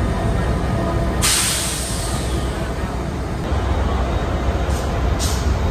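Diesel locomotive idling with a steady low engine rumble. About a second in, a sudden burst of air hiss starts and fades away over a second or so, and two short hisses follow near the end.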